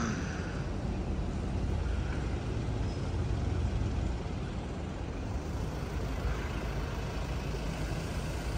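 Steady city street traffic noise: a low, even rumble of cars on the road.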